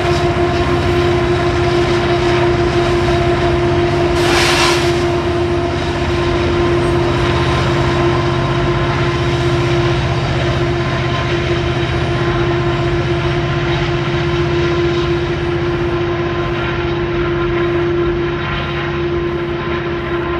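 Diesel locomotives of a freight train running under power: a low engine rumble with a steady whine held throughout, and a short burst of hiss about four and a half seconds in.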